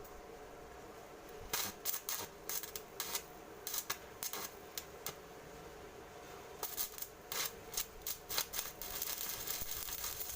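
Irregular clicks, taps and light scraping in two runs, the second busier toward the end, over a faint steady hum.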